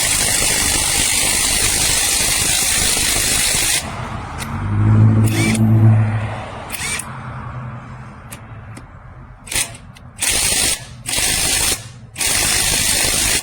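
AOBEN 21V cordless impact wrench hammering on a car wheel's lug nut: one long run for about four seconds, then four short bursts near the end. A brief low hum comes in between. The nut does not break loose, and the owner calls the wrench a dud.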